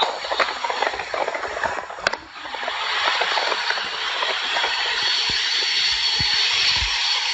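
Steady rushing, hissing noise, dipping briefly about two seconds in and then running on evenly.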